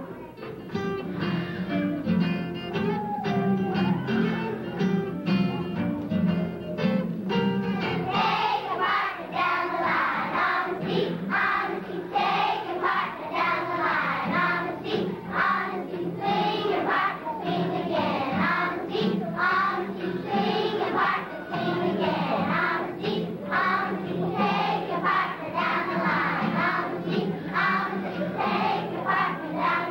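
A choir of young children singing a song together, joining in about eight seconds in over guitar accompaniment that plays alone before that.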